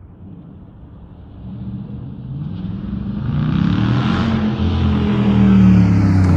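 Dodge Charger Daytona's Hemi V8 through a Flowmaster Outlaw exhaust, a low exhaust note at first that swells much louder from about a second and a half in, building to its loudest near the end.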